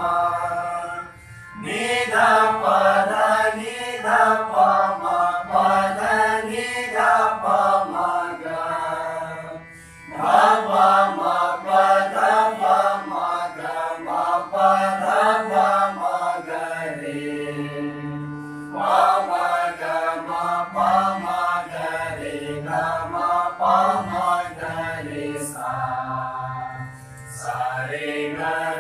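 A group of male and female voices sings Indian sargam alankar exercises in unison (sa re ga ma pa… patterns rising and falling), accompanied by a harmonium. The phrases repeat, with short pauses about 1.5, 10 and 26 seconds in and a long held note about two thirds of the way through.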